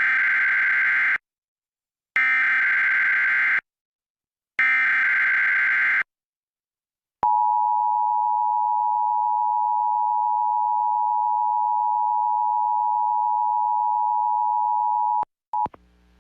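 Emergency Alert System broadcast tones. Three short bursts of warbling digital SAME header data, each a little over a second long, are followed by the steady two-tone EAS attention signal held for about eight seconds. Together they open an EAS test message.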